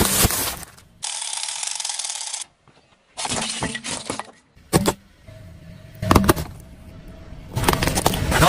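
A car tyre rolling onto and crushing plastic containers and other brittle objects: a string of separate crunches, cracks and plastic crackling, one sharp crack a little before the middle, broken by short pauses.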